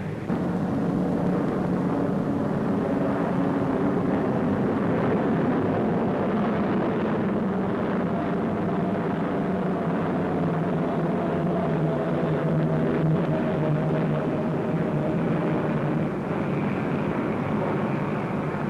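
Aircraft engines droning steadily: a continuous roar carrying several steady humming tones, one higher tone sinking slowly in pitch partway through.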